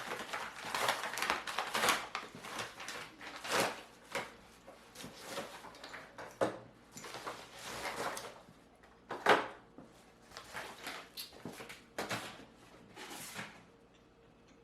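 Cardboard boxes and packaging being handled and opened: irregular rustling and scraping with short knocks, the sharpest knock about nine seconds in.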